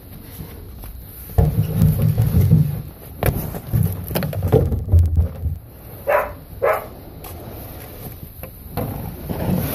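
A cloth sheet rubbing and rustling against the phone's microphone, giving muffled low rumbling handling noise in two long stretches. Two short pitched yelps about six seconds in.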